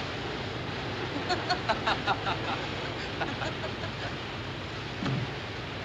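A ship's boilers venting steam from the funnels: a steady, loud rushing hiss that drowns out voices on the boat deck.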